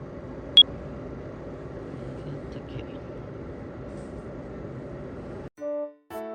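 Steady rumbling noise with one sharp click less than a second in; it cuts off suddenly near the end and background music starts.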